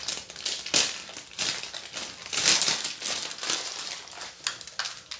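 Plastic bag of shoestring potato sticks (batata palha) crinkling and rustling as it is handled, in irregular bursts.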